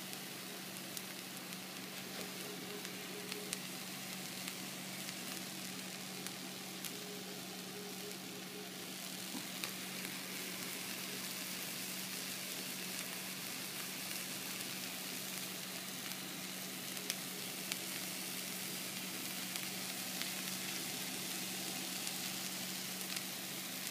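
Hamburger patties frying in hot fat in a frying pan: a steady sizzle with small scattered crackles and pops.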